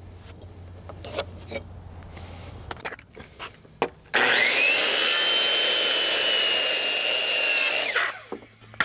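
DeWalt circular saw switched on about four seconds in, its whine rising to full speed, running steadily for about three and a half seconds, then cut off and winding down. A few light knocks of lumber being handled come before it.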